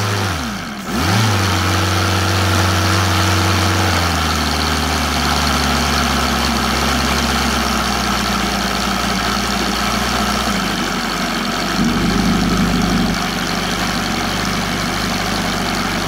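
OS Sirius 7 FR7-420 seven-cylinder four-stroke glow radial model engine with CH glow CDI ignition, driving a 24x10 propeller at high revs. Its revs dip and recover in the first second, then it runs steadily revved up, with small shifts in pitch about four and eleven seconds in.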